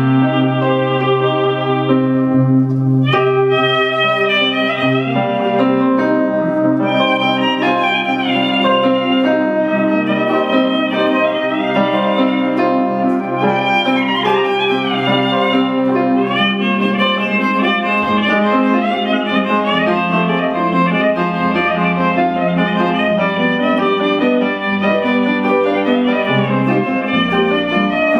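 Instrumental trio: a violin carries the melody with gliding notes over an electronic keyboard holding chords and a sustained bass line, with a guitar accompanying.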